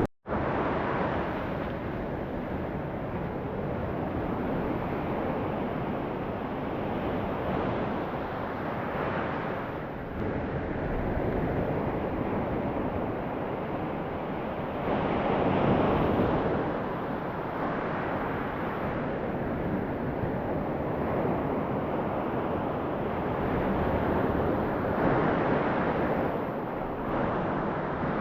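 Ocean surf washing in at a beach, swelling louder a few times as waves break, with wind buffeting the microphone.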